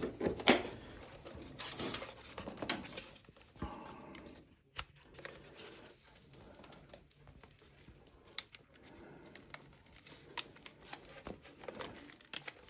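Quiet handling noise: scattered sharp clicks and light rustling as tools and equipment are picked up and set out.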